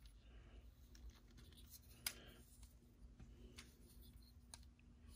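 Faint clicks and light handling of the hinged plastic parts of a Transformers Earthrise Optimus Prime figure as its panels are unfolded, with one sharper click about two seconds in.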